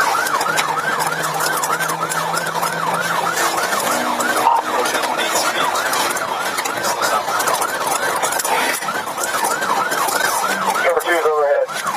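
Police patrol car siren in fast yelp mode, sweeping up and down about two to three times a second, over road noise from the car in pursuit. Near the end the siren switches to a lower, faster warble.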